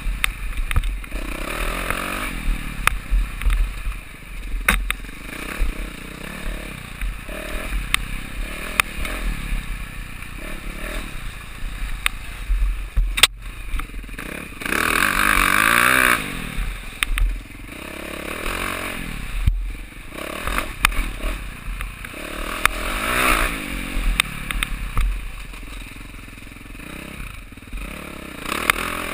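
Enduro motorcycle engine revving up and down as the bike is ridden over rough ground, with sharp knocks and clatter. About halfway through it holds one long, louder burst of throttle.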